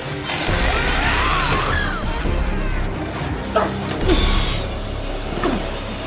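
Orchestral horror film score, with mechanical clanking, screeching metal and a sharp crash about four seconds in.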